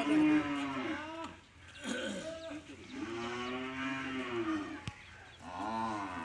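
Cattle mooing repeatedly: several long calls, each rising and then falling in pitch, the longest lasting about two seconds.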